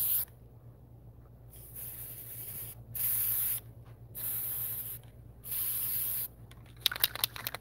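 Aerosol can of cold galvanizing (zinc) spray paint hissing in a series of short bursts of about a second each, with short pauses between, as it is sprayed onto steel anchor bolts. Near the end comes a quick run of rattling clicks.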